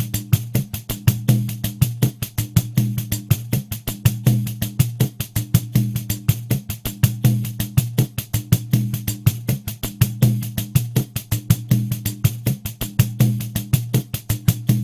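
Pandeiro playing a steady groove at 80 BPM: its jingles sound on every sixteenth note, and the low thump of the drumhead recurs with the beat.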